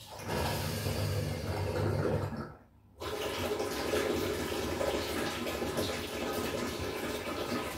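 Water rushing through the plumbing of an electric geyser (hot-water cylinder). It stops briefly about two and a half seconds in, then runs again steadily.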